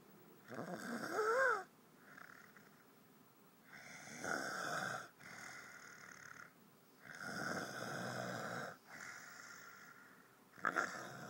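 A man snoring in his sleep: four loud, rough snores about three seconds apart, with quieter breaths between them. The first snore ends in a rising squeaky tone.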